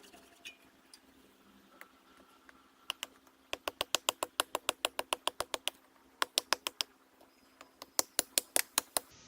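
A wooden baton rapidly tapping the spine of a beater knife driven into a stump, about five sharp knocks a second. The knocks come in three runs, the first and longest starting about three seconds in.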